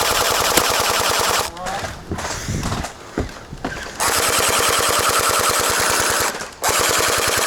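Gel blaster firing on full auto in long bursts of rapid, even clicks. One burst stops about a second and a half in, another starts about four seconds in, and after a brief pause near the end a third begins.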